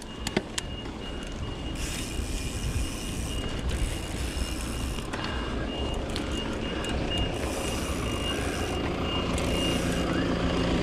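Mountain bike rolling on a paved road, with tyre rumble and wind noise on the helmet camera, and a faint high tone pulsing evenly throughout. A steady low hum joins about nine seconds in as the bike nears the parked vans.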